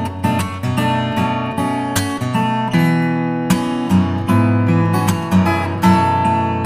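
Background music: acoustic guitar, plucked and strummed notes in a steady flow.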